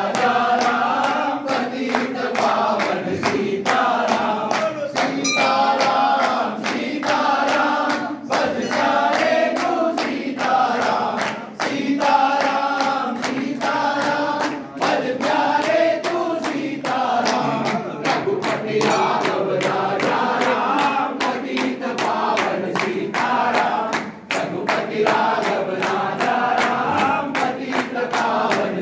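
A group of men singing a Hindu devotional bhajan to Shri Ram in unison, with steady rhythmic hand-clapping on the beat.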